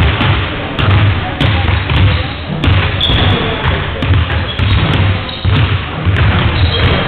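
Basketballs bouncing on a wooden sports-hall floor, echoing thumps about twice a second, with a couple of brief high squeaks.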